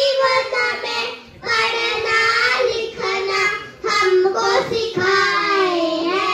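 A group of young children singing a song together in unison, in sung lines with short pauses for breath about a second in and near four seconds in.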